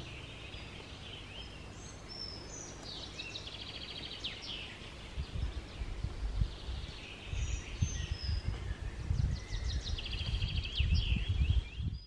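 Songbirds singing in spring woodland, with repeated high chirps and fast trills. From about five seconds in, wind buffets the microphone in irregular low rumbling gusts, which are the loudest sound.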